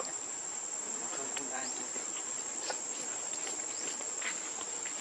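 Insects droning, a steady high-pitched whine that holds throughout, with a few faint short chirps and clicks over it.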